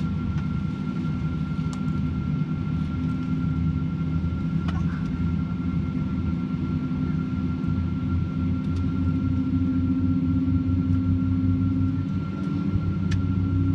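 Steady low drone in a parked airliner's cabin, with a faint constant high whine. A few seconds from the end, a low tone rises slightly in pitch and grows louder.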